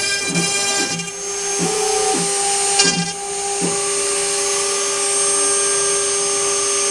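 CNC router running with a steady machine whine. For the first three and a half seconds short chirps recur about twice a second, then the tone settles and holds steady.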